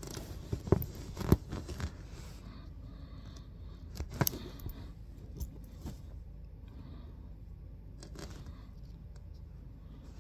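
Small clicks and scrapes of a Garmin Fenix 6 watch band being worked on and off the watch's quick-release pins. There is a cluster of sharp clicks about a second in, another near four seconds and a few lighter ones later.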